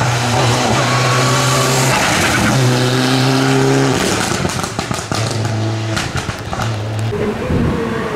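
Mitsubishi Lancer Evolution IX's turbocharged four-cylinder engine driven hard, its note holding a steady pitch with short breaks between gears. A string of sharp pops comes in the middle, and the revs rise again near the end.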